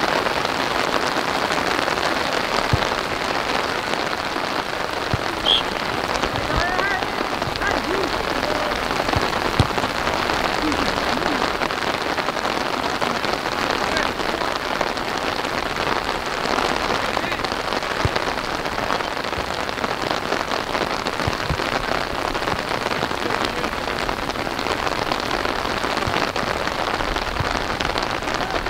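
Steady rain falling, an even hiss, with faint distant shouts and a brief high tone about five seconds in.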